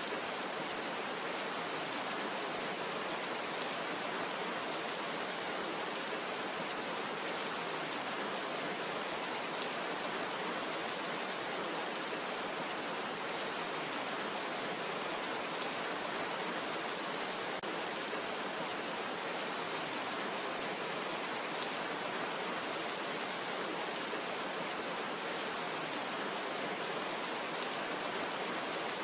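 Steady rain falling, an even unbroken hiss with fine scattered drop ticks.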